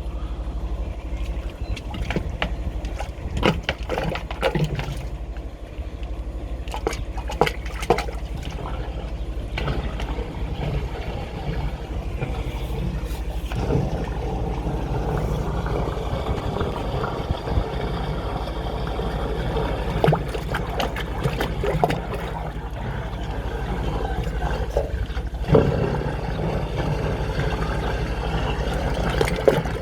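A drain-jetting machine's engine running steadily, with knocks and clatter through the first eight seconds. From about ten seconds in, water rushes and gurgles in the drain.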